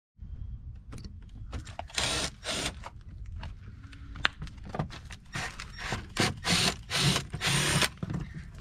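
Cordless impact driver running in several short bursts, the first about two seconds in and the rest close together near the end, backing out the black plastic screw clips that hold a Porsche Panamera's rocker molding. Small clicks and handling knocks come between the bursts.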